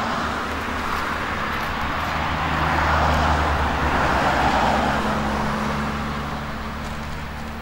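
Distant engine noise of a Boeing 747-400 climbing away: a steady rushing with a low hum underneath. It swells about three to five seconds in, then slowly fades.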